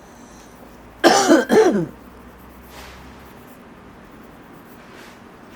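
A person coughs twice in quick succession about a second in, each cough voiced and falling in pitch; otherwise low room tone.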